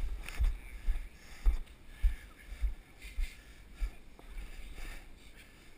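Footfalls of a runner carrying the camera, jolting it with a thud about every half-second on grass and loose straw; the steps die away after about four seconds.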